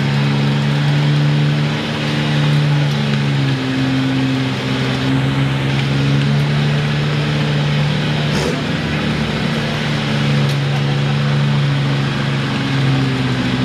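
Engine of a mud-caked Ford pickup held at high, fairly steady revs as the truck churns slowly through deep mud, with a sharp knock about eight seconds in.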